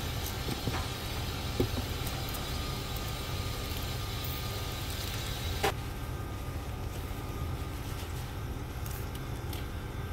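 A steady low mechanical rumble, with a few light clicks and one sharp knock about five and a half seconds in as the prawns' packing box is handled.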